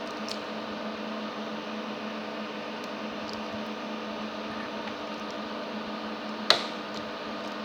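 Steady mechanical hum with several held tones, from a running machine or fan, with a single sharp click about six and a half seconds in.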